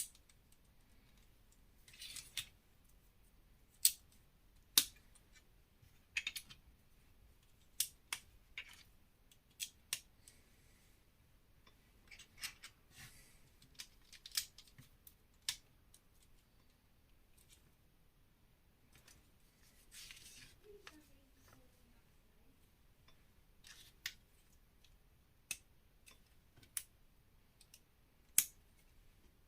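Lego plastic bricks being handled and snapped together: sharp clicks at irregular intervals, with a few short scuffing rustles between them.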